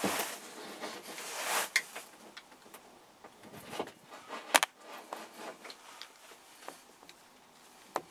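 Close handling noise: rustling swells, then a scatter of small sharp clicks, the loudest about four and a half seconds in and another near the end.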